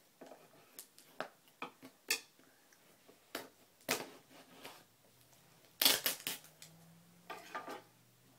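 Packaging of a MacBook Air box being opened by hand: a run of sharp crinkles and clicks, with the loudest crackling burst about six seconds in.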